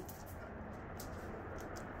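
A lull between barks: a low, even background hiss with a few faint light ticks, about a second in and again near the end.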